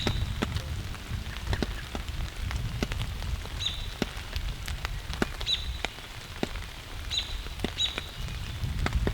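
Raindrops tapping at irregular intervals, with a low steady rumble underneath and a few short high bird chirps.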